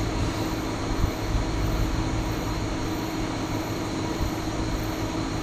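Steady mechanical drone: a low, uneven rumble under a steady hum and a hiss.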